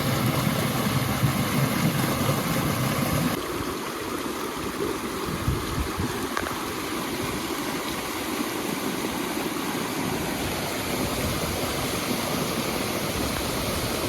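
Water rushing steadily over rocks at a waterfall, with a deeper, louder rumble for the first three seconds or so.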